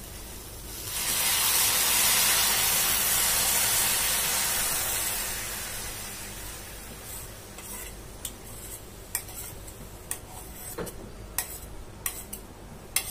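Full-cream milk poured into a hot kadhai of cooked grated beetroot, hissing and sizzling loudly as it hits the pan about a second in, then dying down over several seconds. Scattered light clicks follow near the end.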